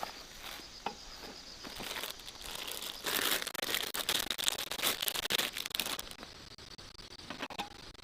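Crinkling and rustling for about three seconds in the middle, over a steady pulsing chirr of insects.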